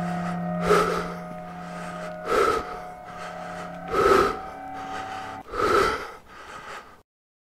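A series of five short, breathy gasps, one about every second and a half to two seconds, over a steady low drone. The sound cuts off abruptly about seven seconds in.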